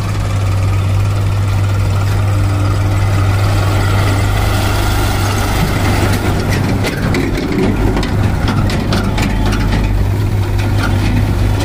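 HMT 3522 tractor's diesel engine running with a steady low drone. From about halfway through, a quick run of rattling clicks rides over it.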